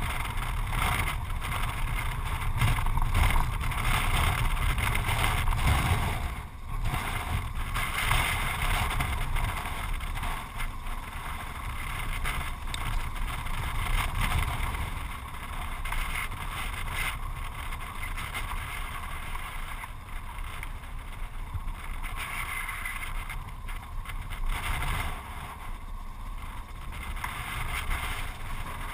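Yamaha XT660Z Ténéré's single-cylinder engine running as the bike is ridden along a gravel road, with wind rushing over the microphone and a steady low rumble.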